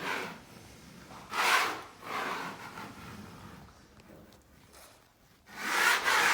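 A few short rubbing strokes of a tool over the leather wall covering, two near the start and two near the end.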